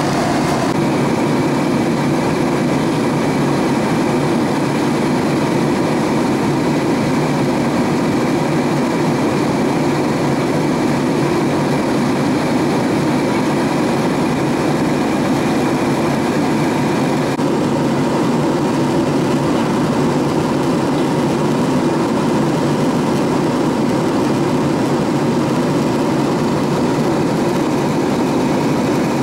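Steady cabin roar of a Boeing 767-300ER in flight, the engines and airflow blending into one even rushing noise. The higher hiss softens slightly a little past halfway.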